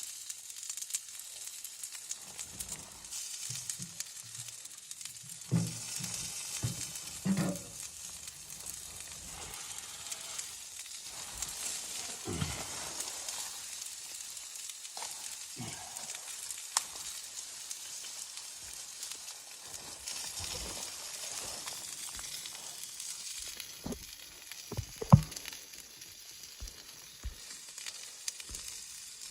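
A steady sizzling hiss with scattered light knocks and clicks, one sharper knock near the end.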